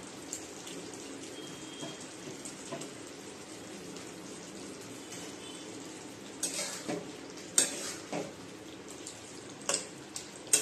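Chicken and tomatoes simmering in a wet masala in a metal wok, a steady sizzle. From about six seconds in, a flat metal spatula stirs the pan, scraping and clinking sharply against the wok several times.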